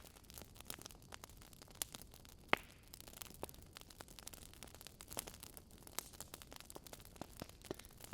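Wood fire crackling: irregular sharp pops and snaps over a faint steady hiss, the loudest pop about two and a half seconds in.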